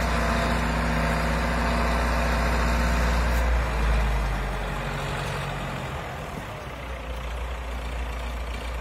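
Submersible lifeboat launch tractor's engine running steadily as it tows the lifeboat and its trailer up the slipway. It is loud at first, then drops away from about four seconds in as the tractor moves off.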